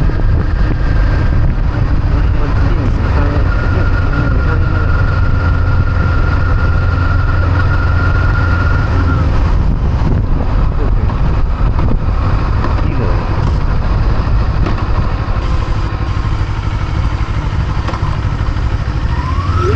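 Kawasaki Eliminator SE motorcycle running steadily under way, its engine note holding an even pitch. Near the end the pitch rises as it picks up speed.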